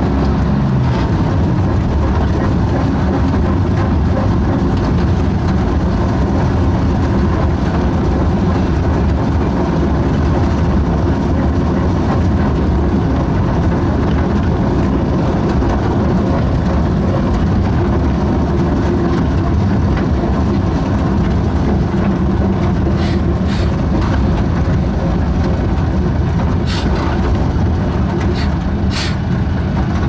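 Diesel engine of a small narrow-gauge forest railway locomotive (No. 142) running steadily, heard from inside its cab as it travels, with the wheels rolling on the rails. A few sharp clicks come in the last several seconds.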